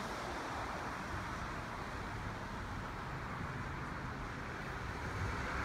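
Steady rushing outdoor background noise with road traffic in it, even and unbroken, with no distinct events.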